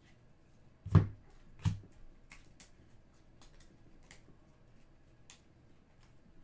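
Trading cards being handled: two sharp taps close together about a second in, then a few faint ticks as cards are slid off the stack one at a time.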